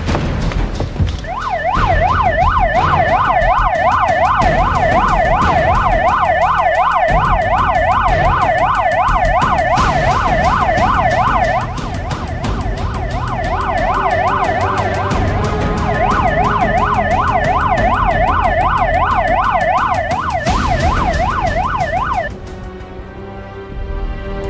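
Police car siren wailing in a fast up-and-down yelp, about four sweeps a second. It fades back briefly about halfway through, returns, and cuts off shortly before the end.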